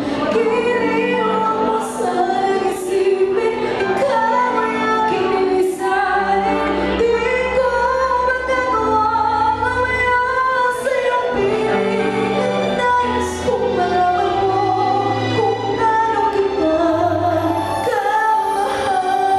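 A young female singer singing a slow ballad solo into a microphone over accompanying music, holding long notes above a steady bass line.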